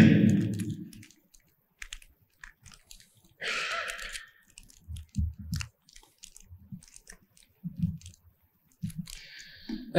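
A man's voice trails off at the start. Then comes a pause filled with soft clicks, a few low knocks and two brief hisses close to a microphone, the kind of handling and breath noise heard between sentences.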